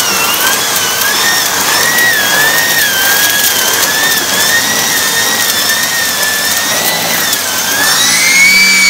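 Numatic Hetty 160 vacuum cleaner (620 W, single-speed) running with a small turbo brush tool worked back and forth over carpet: a steady high whine that wavers with each stroke and climbs in pitch near the end.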